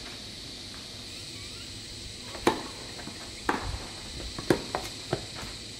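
Tennis ball strikes and footsteps on an artificial grass court: a handful of sharp, irregular knocks in the second half, the loudest about two and a half and four and a half seconds in. A steady high-pitched hum runs underneath.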